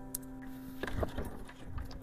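Faint steady droning tone with a few light clicks and knocks.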